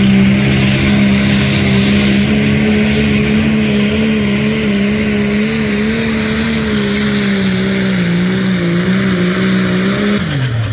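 Turbocharged diesel pickup engine held at high revs under heavy load while pulling a sled, its pitch steady with a slight waver. About ten seconds in the revs drop away as the throttle is let off at the end of the pull.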